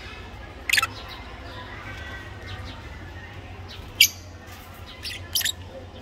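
Parrots giving short, sharp, high-pitched squawks: one about a second in, then three more near the end, two of them close together, over a steady low hum.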